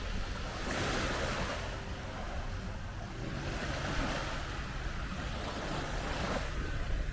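Sea waves washing onto a sandy beach, the hiss swelling and fading about three times, with a low wind rumble on the microphone.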